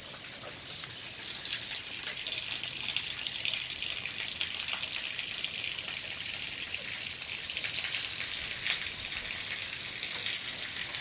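Steady rain falling, a fine even hiss with faint scattered patter, growing louder over the first few seconds.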